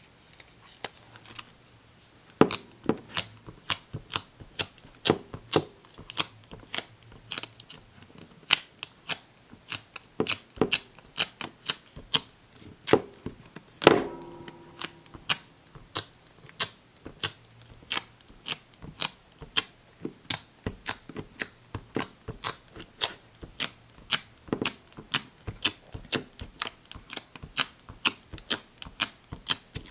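A dust-removal sticker dabbed again and again on a phone's glass screen, each dab a sharp tick, about two to three a second. About fourteen seconds in there is one louder knock with a brief ring.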